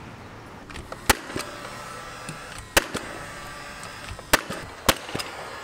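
Cordless brad nailer driving panel pins into a saveBOARD wall-lining sheet of compressed recycled packaging: four sharp shots at uneven intervals, with a few fainter clicks between them.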